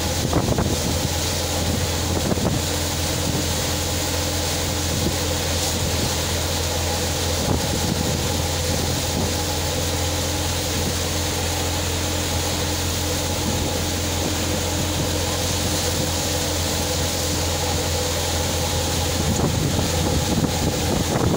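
Tractor-driven multicrop thresher running steadily while threshing soybean plants, the tractor engine and threshing drum making one continuous mechanical din.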